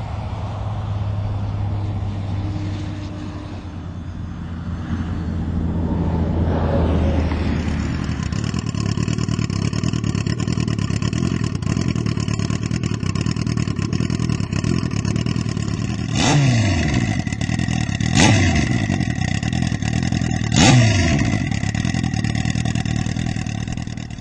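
Turbocharged Suzuki Hayabusa inline-four motorcycle engine idling, with three quick throttle blips in the second half, each revving up sharply and dropping straight back to idle.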